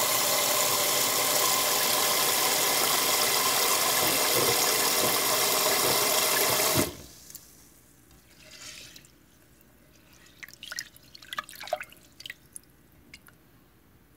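Tap water running steadily into a pot of glutinous rice, shut off abruptly about seven seconds in. After that, faint drips and small splashes of water in the pot.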